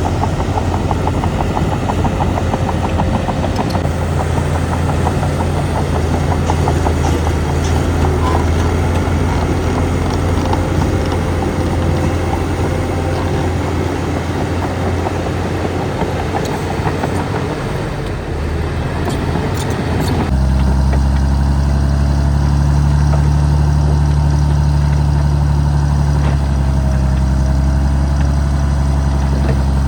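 Heavy diesel engines of earthmoving machinery running steadily. About twenty seconds in the sound changes abruptly to a deeper, steadier engine note.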